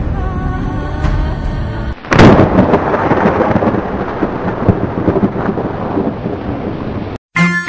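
Thunder sound effect: a sudden loud crack about two seconds in that rumbles on and slowly fades, cut off abruptly near the end. Before it, a low rumble under held music tones.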